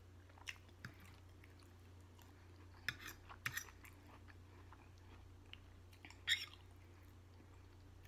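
Close-miked chewing and mouth smacking on steak and vegetables, heard as scattered short sharp clicks, with the loudest about six seconds in, over a faint steady low hum.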